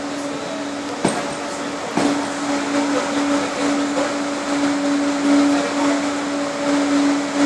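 SNCF Z2 electric multiple unit pulling away, its traction equipment giving a steady electric whine over running noise; the whine grows stronger about two seconds in. Two sharp clicks come about one and two seconds in.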